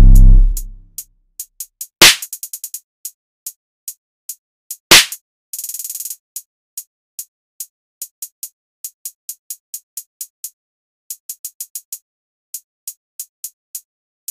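Trap beat instrumental in a stripped-down breakdown. The deep 808 bass cuts out within the first second, leaving sparse hi-hat ticks with quick rolls, two heavy drum hits about two and five seconds in, and a short burst of hiss around six seconds.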